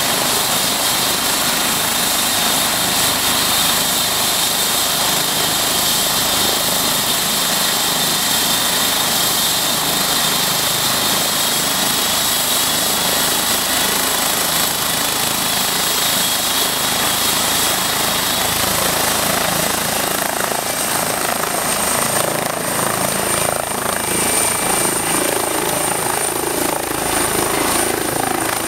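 Eurocopter EC135 twin-turbine helicopter running on the ground, with a steady high turbine whine over the rotor noise. About twenty seconds in, the whine rises in pitch and the rotor sound grows, with a pulsing beat, as it powers up for take-off and lifts into a hover.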